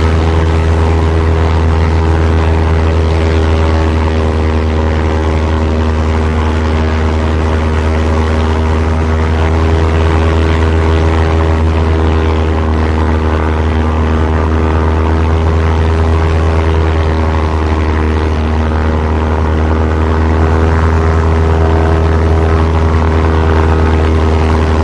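Piston engine of a WWII-era propeller airplane running steadily in flight: a continuous loud drone, strongest in the low hum, with a stack of steady engine tones that hold their pitch.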